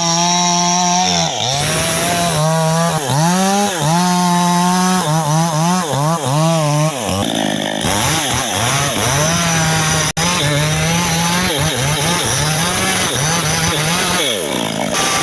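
Mini chainsaw running at high speed while felling a benzoin tree, its pitch dipping and recovering again and again as the chain bites into the wood. The sound cuts out for an instant about ten seconds in.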